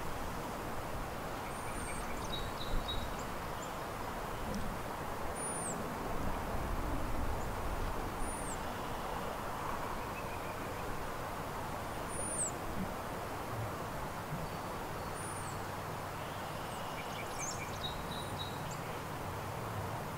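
Small birds calling: a thin, high note that rises and drops, repeated about every three to four seconds, with a few fainter chirps, over a steady rushing background noise.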